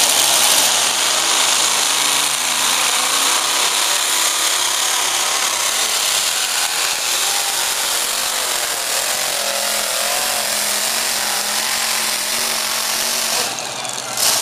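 Unlimited modified pulling tractor running at full throttle under load, a loud, dense mechanical din that is strongest near the start. The sound drops off sharply near the end.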